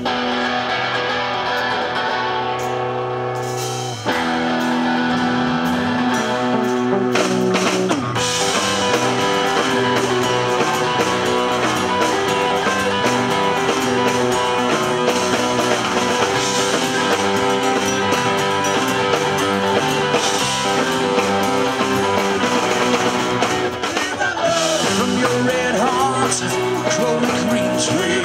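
Live rock band playing: electric guitars, bass guitar and drum kit. The full band comes in louder about four seconds in.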